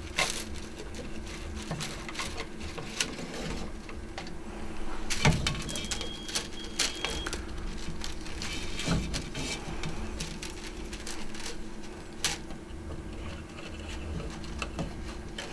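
Handling of a reel of PETG 3D-printer filament as it is taken out and mounted for loading: faint rustling and light plastic knocks, with a few sharper clicks, over a steady low hum.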